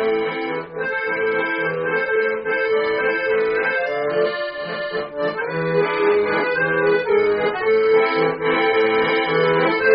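Bayan (Russian chromatic button accordion) playing an instrumental passage of a song, a melody over held chords.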